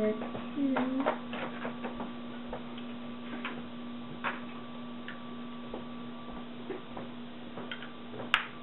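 Small plastic clicks and taps of snap-together electronics kit parts being handled and pressed onto a plastic base grid, scattered irregularly, over a steady low hum.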